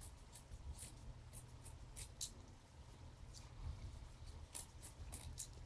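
Scissors snipping through old sweatpants fabric: a string of short, faint snips, several in quick pairs, with a gap of about a second in the middle.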